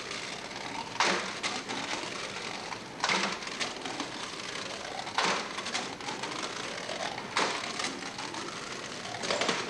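Bamboo poles being worked in a metal clamping frame: four sharp knocks about two seconds apart, with faint rising creaks in between.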